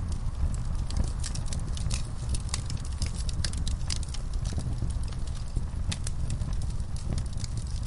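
Campfire burning: a steady low rumble of flames with frequent sharp, irregular crackles and pops of burning wood.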